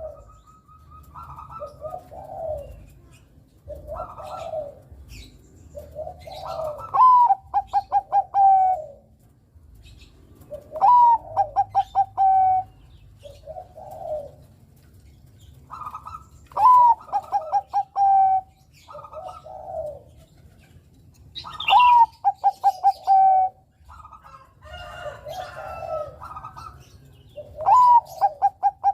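Bangkok-type zebra dove (perkutut) cooing: loud phrases repeat every few seconds, each opening with a rising note and running into a quick string of short coos, with softer, lower coos between them.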